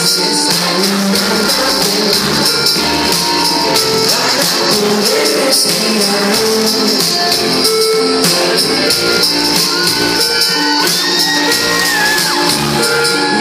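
Live pop-rock band playing through a loud PA, with electric guitars, drums and vocals.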